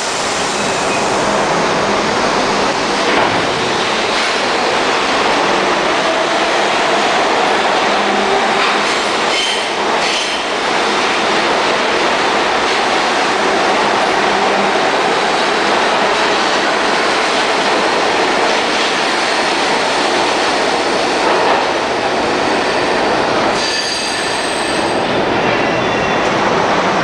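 NYC R42 subway cars running through an underground station: steady loud rumble of steel wheels on rail and traction motors, with a brief high-pitched wheel squeal near the end.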